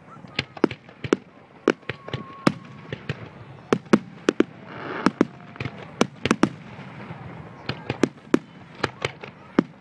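Aerial firework shells bursting in quick, irregular succession, sharp booms about two to three a second, with a brief rushing noise about five seconds in.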